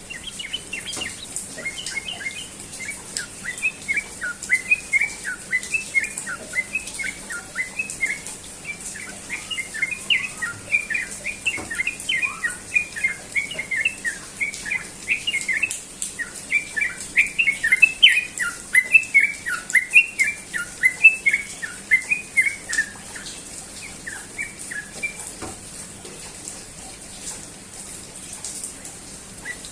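Sooty-headed bulbul (trucukan) singing in the rapid 'ropel' style: a fast, unbroken stream of short chirping notes that falls away about three-quarters of the way through.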